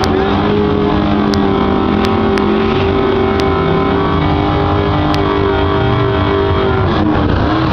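Ford pickup truck engines pulling hard at full throttle down a drag strip, the engine note holding a steady pitch, then dipping briefly and climbing again near the end.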